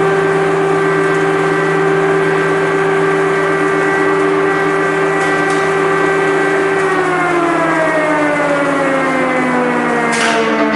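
Civil-defence air-raid siren sounding a steady tone, then about two-thirds of the way through its pitch slides down as it winds down.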